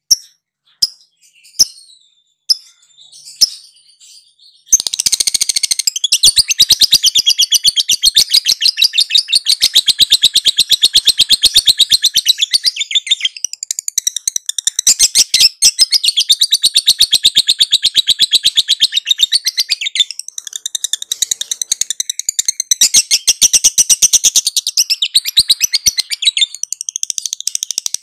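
Lovebird ngekek: a few short single chirps, then about five seconds in a long, rapid, high-pitched chattering trill that runs on with only brief dips.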